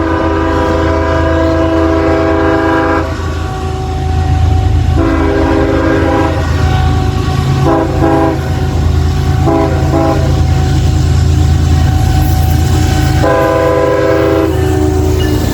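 Locomotive air horn sounding a chord in a series of blasts: two long ones, quick short toots around the middle, and a final long blast. Under it runs the steady low rumble of the train.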